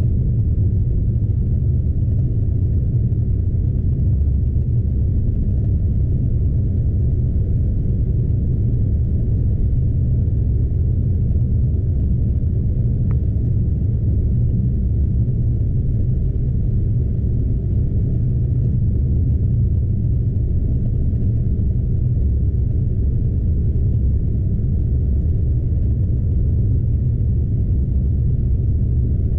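Scania truck driving steadily along a snowy road, heard from inside the cab: an even, low rumble of the diesel engine and tyres.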